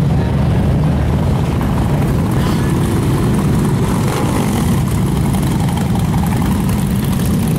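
V-twin cruiser motorcycles rumbling steadily as they ride past one after another.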